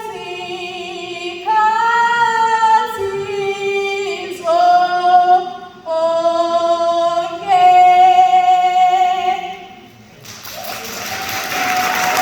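A woman singing unaccompanied in long held notes over several phrases, fading out about ten seconds in. Then applause and crowd noise.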